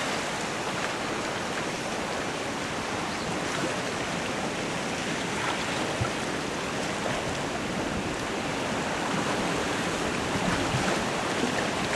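River ice drift: packed ice floes carried along on fast water, making a steady rushing hiss with faint small knocks of ice against ice.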